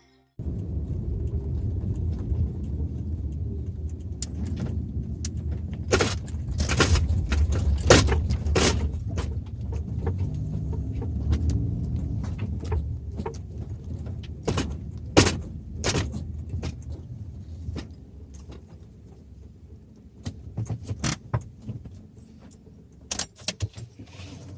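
Car cabin while driving: steady low road rumble with repeated clicks and rattles. The rumble dies down about eighteen seconds in, leaving only scattered clicks.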